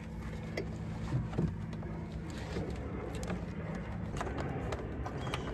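A vehicle engine idling with a steady low hum, with a few faint taps and rustles as a wire is fed through the car's trunk.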